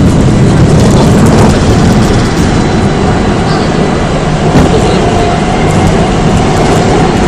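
Seoul Metro 4000-series electric train with Mitsubishi GTO VVVF traction, running: steady heavy rumble of wheels on rail and running gear. A faint electrical whine comes in during the second half.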